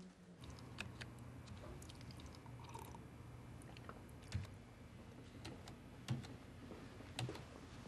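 Quiet room tone with a low steady hum and faint, scattered small clicks and taps, about one every second or so.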